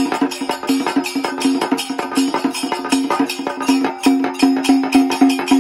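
Traditional barrel drum beaten in a fast, steady rhythm, many strokes a second, with many strokes carrying a low pitched ring.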